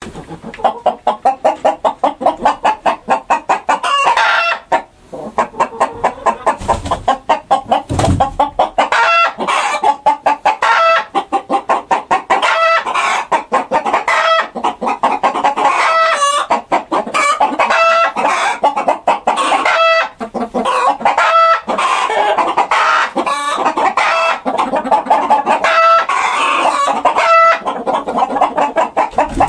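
Domestic chickens clucking in a fast, continuous run of short repeated clucks.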